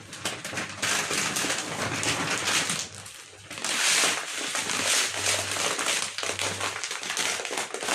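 Crinkly packaging crackling and rustling as it is handled and opened, with a short lull about three seconds in.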